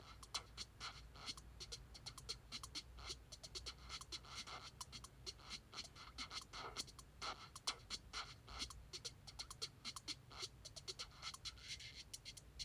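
Faint, irregular light clicks, taps and scratching, several a second, of small metal RC buggy suspension parts and a hex driver being handled while the rear axle and wheel are fitted.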